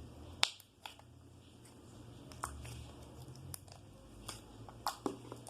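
Faint handling noises of homemade slime being worked in a container: scattered sharp clicks and taps, about half a dozen, with small squishy rustles, over a steady low hum.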